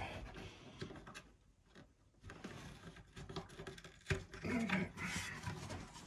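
Faint handling sounds of a wooden organ part being moved: soft rubbing and scraping, with a sharp knock about four seconds in.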